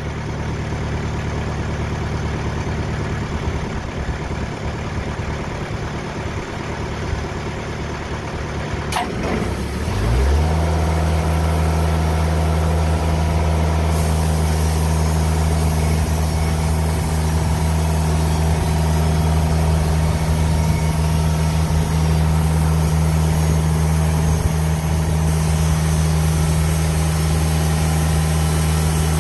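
TimberKing portable band sawmill's engine running steadily, then about ten seconds in it is throttled up to a louder, steady speed to drive the band blade for a cut.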